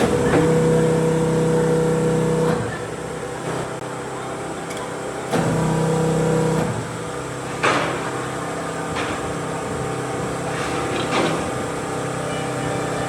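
A steady machine hum that runs for a couple of seconds, stops, and comes back briefly, followed by a few separate knocks.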